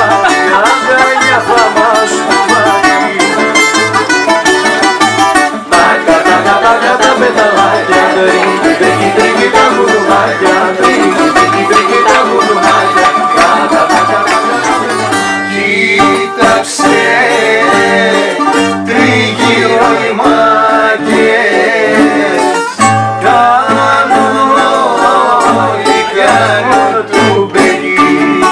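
Live rebetiko ensemble: bouzouki carrying a fast plucked melody over strummed guitar with a steady bass-note pulse, joined by voices singing for part of the time.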